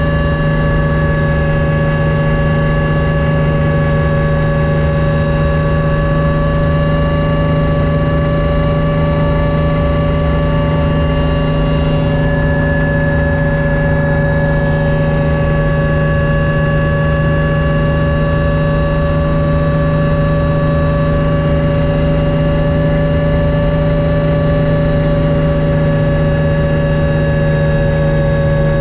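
Helicopter in cruising flight heard from inside the cabin: a loud, steady engine and rotor drone with a constant low hum and several steady whining tones, one of which shifts slightly in pitch about twelve seconds in.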